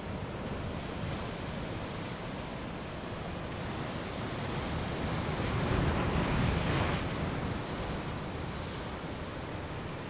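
Ocean waves washing and breaking against a rocky shore: a continuous rush of surf that swells to a louder break about six seconds in and then eases off.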